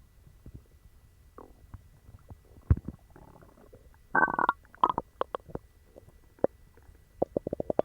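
Human stomach growling, upset by dog treats that gave a bellyache: scattered gurgles and pops, with a short squeaky growl about four seconds in and a quick run of small pops near the end.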